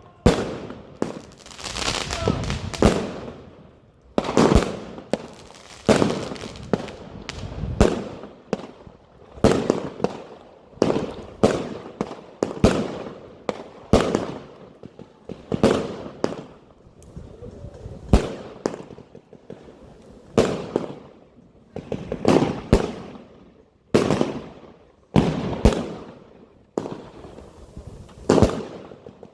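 Argento Sacramentum B, a 100-shot, 30 mm firework compound cake, firing: a steady series of bangs, about one a second or a little faster, each followed by a fading tail.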